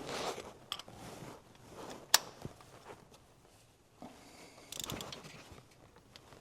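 Hand tools and parts being handled under the hood during a spark plug change: a few sharp metallic clicks, the loudest about two seconds in, and short bursts of scraping and rustling.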